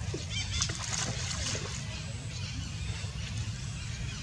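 Water sloshing and lapping as macaques swim through a muddy pond, over a low steady rumble, with scattered faint ticks.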